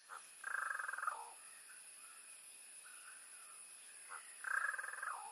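Two short rattling animal calls, about four seconds apart, with a few fainter calls between them, over a faint steady high hiss.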